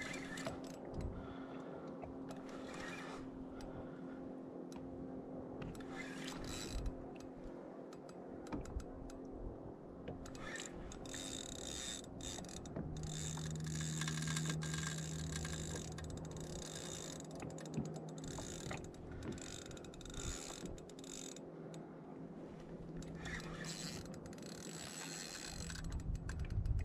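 Spinning reel working against a large hooked fish on light line: the drag and gears click and whirr in spells as line is given and wound back, busiest about halfway through.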